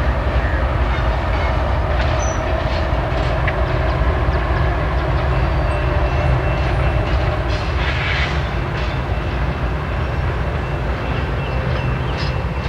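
CSX local train rolling by with its executive passenger cars: a steady low rumble of wheels on rail with light clicking. A thin high whine joins about halfway through.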